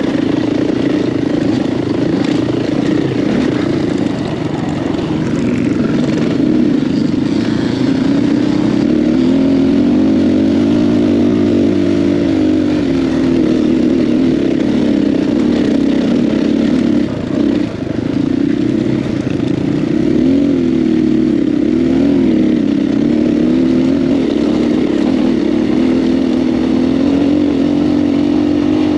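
KTM 500 EXC-F dirt bike's single-cylinder four-stroke engine running under way, its pitch rising and falling as the throttle opens and closes. The throttle drops off once, briefly, a little past halfway.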